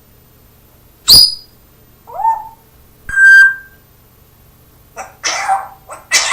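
A parrot making a run of sounds: a short sharp cough-like burst about a second in, a brief rising squawk, a clear whistled note, then raspy chattering bursts near the end. The burst is the parrot's copy of a human cough.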